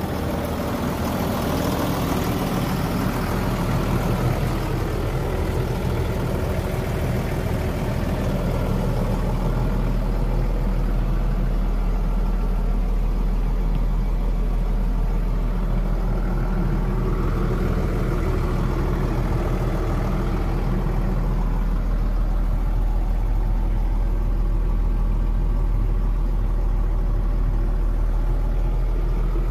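Fendt 716 Vario tractor's six-cylinder diesel engine idling steadily at around 790 rpm. It sounds duller after about nine seconds, as heard from inside the cab.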